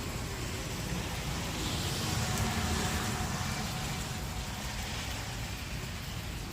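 A vehicle driving past on a wet road, its tyre hiss swelling and then fading over a few seconds, against a steady wash of heavy rain.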